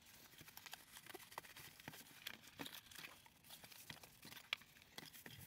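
Faint rustling and light taps of a small cardboard box being handled and its end flap opened.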